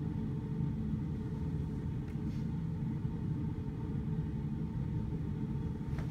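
Steady low rumble and hum of background room noise, with no distinct knocks or impacts.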